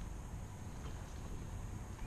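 Low, steady rumble of wind on the microphone over faint outdoor background hiss, with a thin high steady tone.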